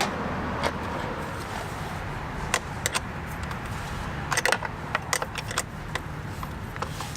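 Scattered light clicks and rattles of small parts and wiring being handled, with a steady low hum underneath.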